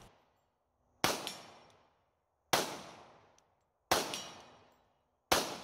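Four shots from a 3D-printed pistol, fired at a slow, even pace about a second and a half apart, each trailing off briefly.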